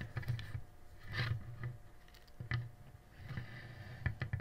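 Plastic action figures being handled on a tabletop: a few light clicks and scrapes of plastic parts.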